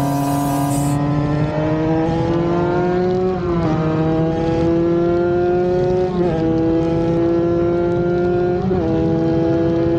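Tuned Kawasaki Ninja RR 150 two-stroke single-cylinder engine accelerating hard under full throttle. Its pitch climbs steadily and dips briefly at three upshifts, about three and a half, six and eight and a half seconds in, over a steady rush of wind.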